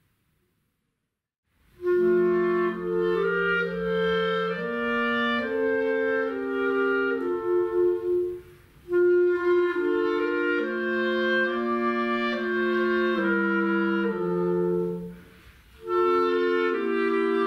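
After a moment of silence, a clarinet quintet starts a Christmas carol, playing sustained notes in several-part harmony. The tune moves in phrases, with two short breaks between them.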